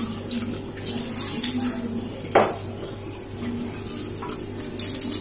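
Metal utensils clinking against an aluminium pressure cooker pot, with one sharp ringing clink a little over two seconds in, over a steady low hum.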